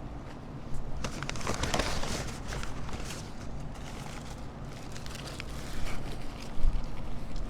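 Wind rumbling on the microphone, with irregular crackling and crinkling noises, densest about a second in.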